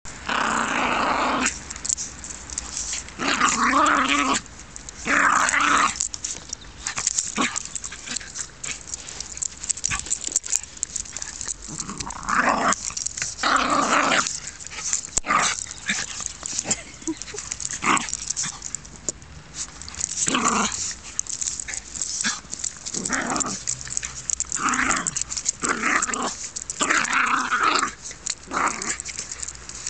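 Two Jack Russell terriers play-fighting and growling at each other in repeated bursts of a second or two, with short pauses between.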